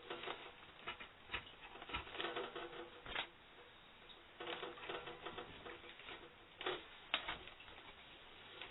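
Hands handling a plastic object at close range: irregular clicks, taps and rustling, with a few sharper clicks and short pauses between bouts.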